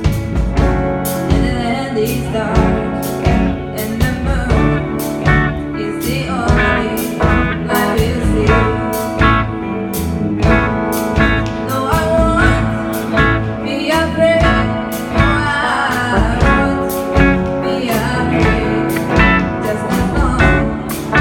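A live band playing a song: a drum kit keeping a steady beat under guitar, bass and a singing voice.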